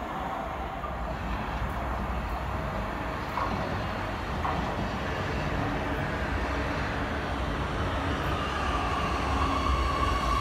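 Oslo Metro MX3000 electric train pulling into the station, its running noise on the rails growing louder as it nears, with a few light clicks. Near the end a whine from its electric drive grows stronger as the train slows alongside the platform.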